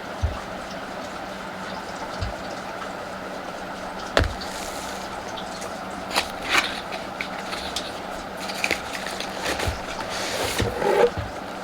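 Packaging being handled: a few sharp knocks in the first four seconds, then bursts of crinkly rustling from about six seconds in, over a steady hiss with a faint hum.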